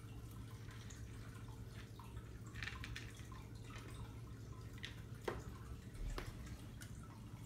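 Irregular light clicks and taps from hamsters moving about their wire cage, with one sharper tap a little past halfway, over a faint steady hum.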